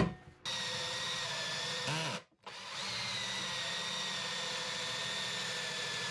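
Cordless drill driving a hole saw through a hardwood butcher-block countertop, a steady whine as the saw slowly cuts in. It stops for a moment about two seconds in, then runs on.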